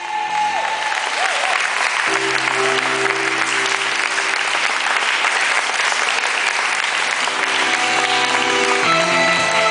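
Audience applauding steadily, with music chords held underneath for stretches.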